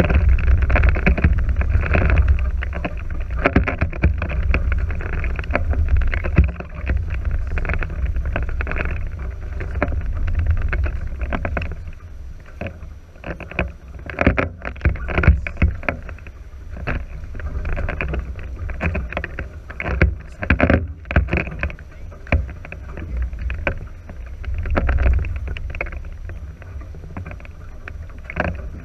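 Wind buffeting the microphone and water rushing along the hulls of a NACRA 5.0 catamaran under sail, with irregular knocks and splashes; the rumble eases after about twelve seconds.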